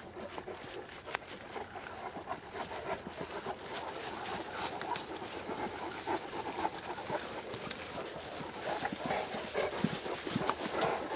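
Great Danes panting close by, mixed with the rustle and patter of feet walking through grass.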